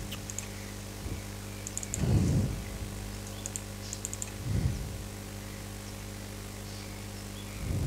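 Computer keyboard typing in a few short bursts of clicks over a steady low electrical hum, with three low thumps spaced a couple of seconds apart.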